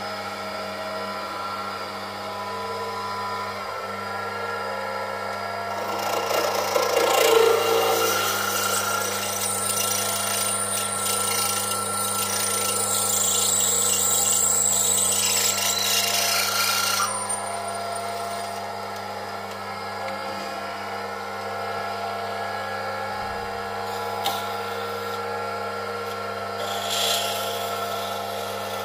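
Small benchtop metal lathe running with a steady motor hum and whine. From about six seconds in, a drill bit held in the tailstock chuck is fed into the spinning work, a louder scraping cut with a thin high squeal that stops abruptly about eleven seconds later as the feed is backed off.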